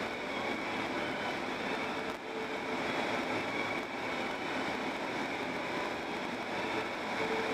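Steady road noise of a car driving along a paved road: tyres on asphalt and the engine's hum, with a brief dip a little over two seconds in.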